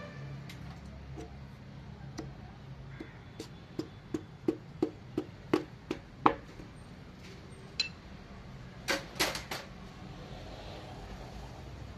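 Piston being tapped down through a ring compressor into the cylinder bore of a Fiat 1.3 Multijet engine block. The taps come as a run of about eight sharp knocks a few tenths of a second apart, then a single knock, then a quick cluster of three or four clinks.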